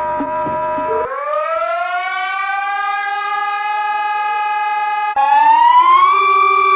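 An emergency warning siren. About a second in it winds up in pitch and settles into a steady wail. Near the end it jumps higher and rises again. In the first second a different steady tone with regular clicks plays before the siren starts.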